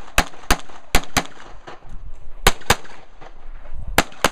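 Handgun fired in quick double-taps, four pairs of shots in all, with a gap of about a second between the second and third pairs and again before the last pair.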